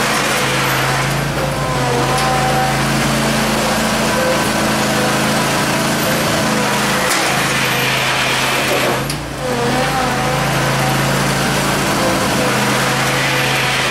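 Small garden tractor engine running steadily while it plows snow with a front blade, its pitch dropping briefly about nine seconds in.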